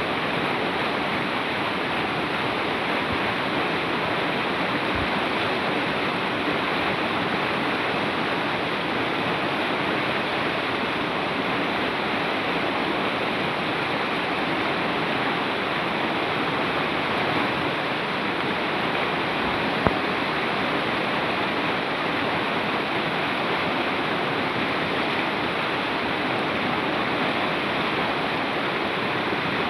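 Mountain river or stream rushing steadily over rocks, a constant loud wash of water. One brief click about two-thirds of the way in.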